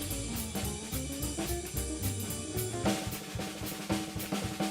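Background music: a drum kit beat with snare and bass drum under a stepping melodic line, changing to held notes about three seconds in.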